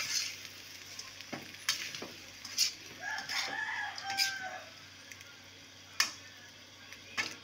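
Metal spatula scraping and clinking against a wok while stir-frying green beans and tofu, with sharp knocks now and then. A rooster crows once, for about a second and a half, about three seconds in.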